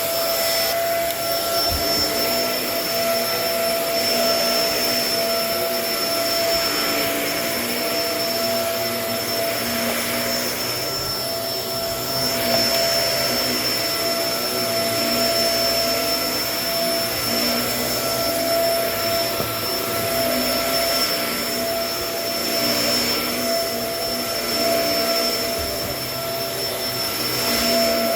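Kenmore vacuum cleaner running steadily, a constant motor whine over its airflow noise, swelling and easing slightly as it is worked over the floor.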